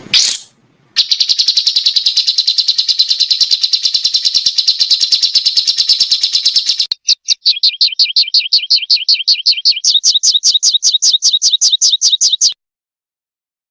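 A small songbird's rapid-fire 'tembakan' call: a fast, even trill of high notes, switching about seven seconds in to a string of sharper down-slurred notes, then stopping abruptly near the end. A brief rising note comes first.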